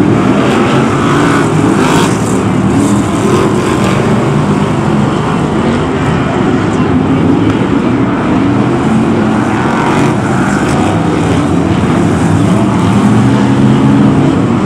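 Several BriSCA F1 stock cars' V8 engines running loud together as the pack races, with overlapping engine notes rising and falling.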